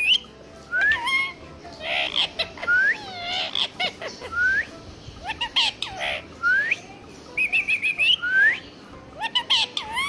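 Indian ringneck parakeet whistling and chattering: a run of short rising whistles about once a second, mixed with quick warbling trills and rough squawky calls.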